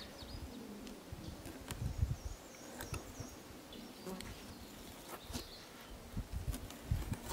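Insects buzzing, with light clicks and a few soft thumps from a knife cutting the Y bones out of a northern pike fillet on a wooden table.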